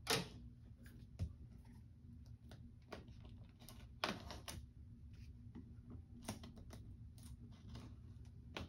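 Fingers picking and prying at the metal staples and flaps of a sealed cardboard box, giving irregular sharp clicks and scrapes. The loudest come just after the start and about four seconds in.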